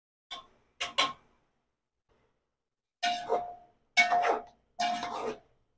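A slotted spatula stirring chicken, tomatoes and green chillies in a metal cooking pot: three scraping strokes about a second apart, each with a ringing note from the pot. Before them come a few light knocks as chopped tomatoes are tipped in from a glass bowl.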